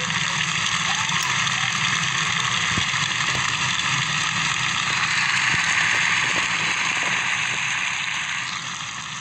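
Stadium crowd applauding, swelling about five seconds in and dying away near the end.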